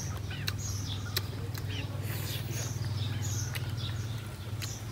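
Noodles being eaten with chopsticks: wet mouth sounds of chewing and smacking, and scattered sharp clicks of chopsticks against a metal wok and bowl, over a steady low hum.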